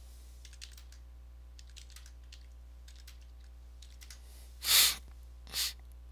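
Faint computer keyboard keystrokes as numbers are typed in, then two short, loud breaths close to the microphone, like a sniff or exhale, a little before the end.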